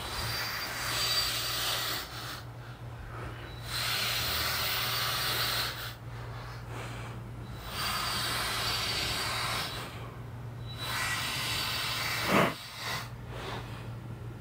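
Cordless drill with a 9/32-inch bit boring holes through an outboard motor's metal cavitation plate. It runs in four bursts of about two seconds each, with short pauses between.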